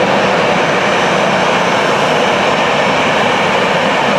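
Boeing 747-400 freighter's four jet engines running at taxi power: a steady rushing noise with a faint high whine riding over it.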